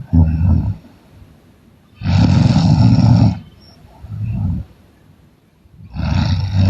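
A person snoring loudly in a steady breathing cycle. Each long snore of about a second and a half is followed by a shorter, quieter breath, repeating about every four seconds.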